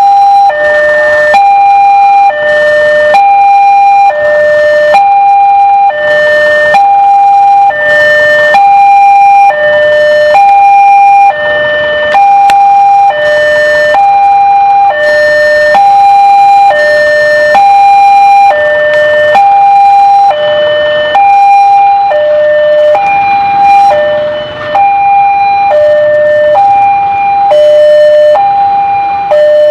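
Railway level-crossing warning alarm sounding with the barrier lowered: a loud two-tone signal alternating high and low about once a second, the warning that a train is approaching.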